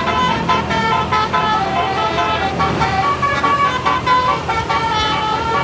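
Tour bus telolet basuri horn: a multi-tone air horn playing a quick, unbroken run of stepping notes up and down.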